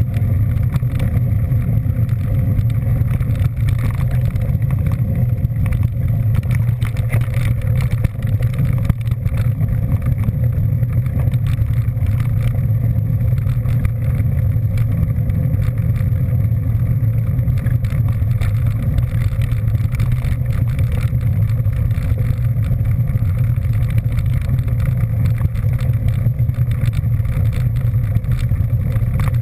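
A vehicle's engine droning steadily at constant speed, heard on board with road and wind noise, loud and unbroken throughout.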